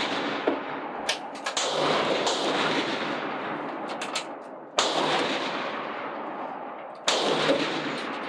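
Rifle shots along a benchrest firing line: three loud reports, about one and a half, five and seven seconds in, each trailing off in a long rolling echo under the covered shooting shed, with a few fainter shots or clicks between.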